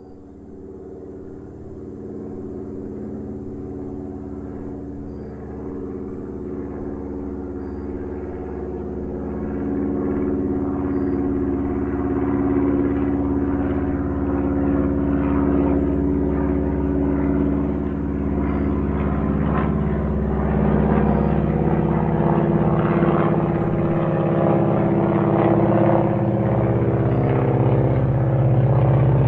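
Small airplane's engine running with a steady drone, growing steadily louder throughout.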